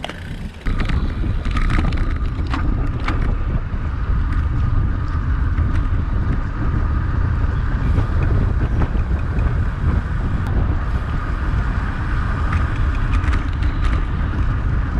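Wind buffeting the microphone of an action camera on a moving road bicycle: a loud, steady rumble with tyre and road noise beneath. It jumps up sharply under a second in, and a few clicks come through in the first three seconds.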